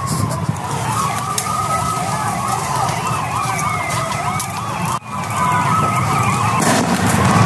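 Several sirens wailing at once, their overlapping tones rising and falling. The sound drops out sharply for an instant about five seconds in, then returns.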